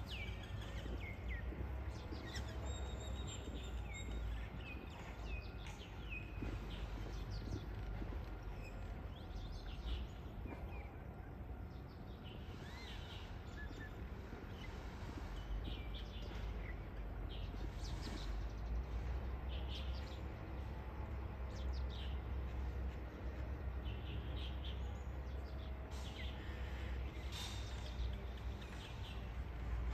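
Birds chirping and calling in many short chirps over a steady low outdoor rumble.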